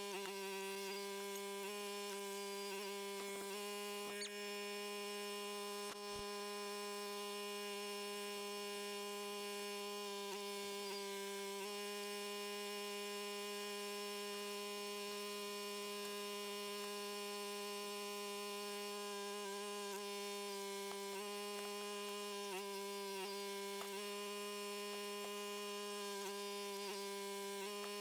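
Log splitter's engine and hydraulic pump running, a steady humming drone with its pitch wavering slightly a few times.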